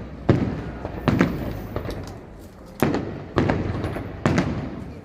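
Fireworks display: five loud shell bursts at irregular intervals, each a sharp bang followed by a rumbling, echoing tail.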